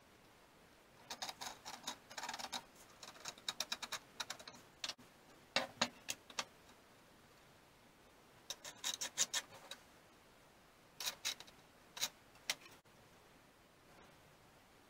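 Light clicking and tapping in five short clusters of rapid strikes with quiet gaps between, from small tools or metal parts being handled.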